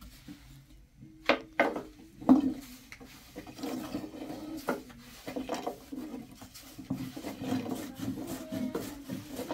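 Wooden knocking and rubbing: a few sharp knocks in the first seconds, then a steady run of scraping, over a faint steady hum.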